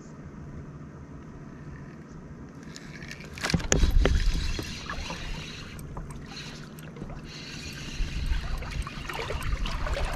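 A hooked black bass thrashing and splashing at the water's surface beside a small pontoon boat while it is being fought. The splashing breaks out suddenly about three and a half seconds in and goes on in rough bursts, swelling again near the end.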